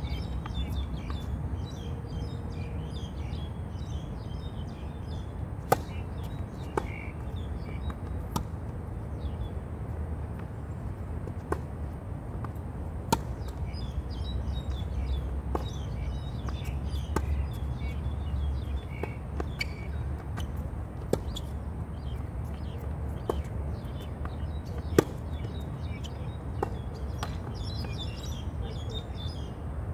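Small birds chirping over a steady low outdoor rumble, with sharp pops of tennis ball impacts every second or two through much of it, the loudest about six, thirteen and twenty-five seconds in.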